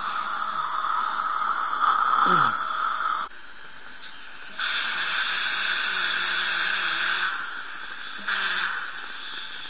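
Surgical implant drill in a contra-angle handpiece running in three on-off bursts, cutting the implant site in the jaw bone, with a hiss of saline irrigation and suction over its faint steady whine.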